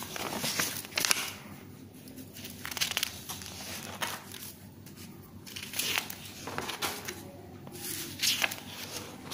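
Loose sheets of drawing paper being handled and turned over one at a time, a crisp rustle every second or so.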